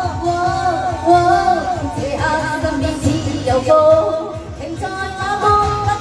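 A woman sings a Cantopop song into a handheld microphone over amplified pop accompaniment with a steady beat, holding notes with a waver in them.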